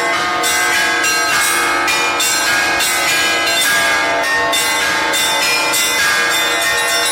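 Belfry bells rung in a festive Easter trezvon: several bells of different pitches struck in a quick, continuous rhythm, their tones overlapping and ringing on.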